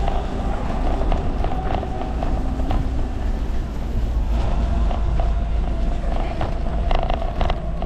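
Busy street ambience: a steady low rumble with faint distant voices and scattered short clicks, several of them close together near the end.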